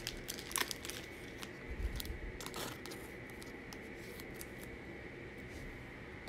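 Trading cards and a foil pack wrapper being handled: scattered light scrapes, clicks and rustles, busiest in the first few seconds and then sparser.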